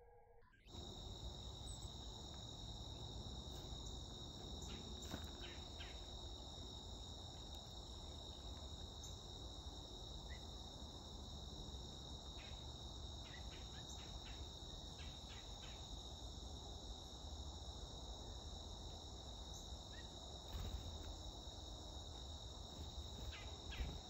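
Steady high-pitched drone of an insect chorus, starting about a second in, with a few short high chips scattered through it.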